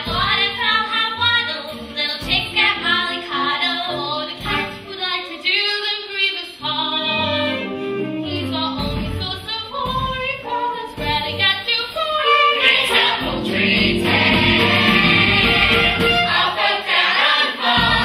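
A large cast singing together in a musical-theatre chorus number. About twelve seconds in, the singing swells into a louder, sustained full-voiced passage.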